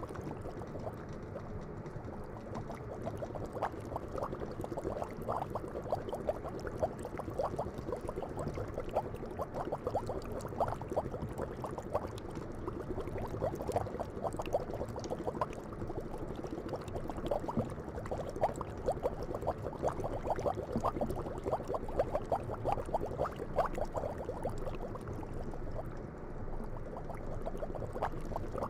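Ginger green tea boiling: a steady stream of small bubbles popping and gurgling.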